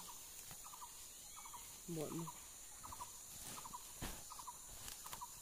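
An animal calls over and over in short stuttering groups of three or four quick notes, about one group every half second. A brief low voice-like sound comes about two seconds in, with faint clicks of the sack and soil being handled.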